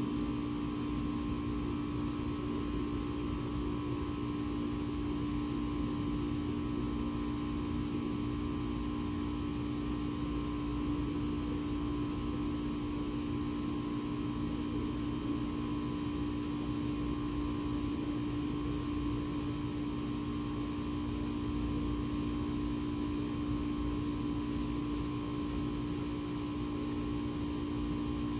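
A steady hum made of a few fixed tones over a low rumble, unchanging throughout.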